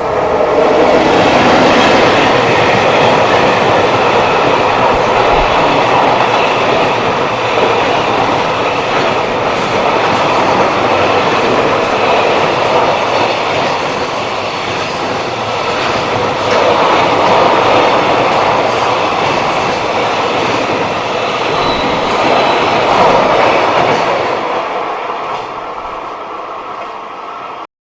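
Freight train passing close by: a long, loud, steady rush of wheels on rail with clickety-clack from the wagons. It eases off in the last few seconds before cutting off suddenly.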